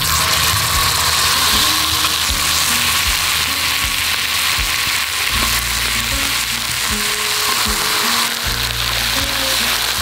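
Thick-cut pork belly sizzling on a hot cast-iron pot-lid griddle: a steady, loud frying hiss as the strips are laid down, with background music underneath.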